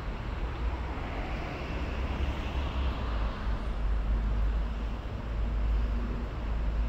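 Steady city road traffic running alongside, a low rumble of engines and tyres, with one vehicle passing that swells and fades about two to three seconds in.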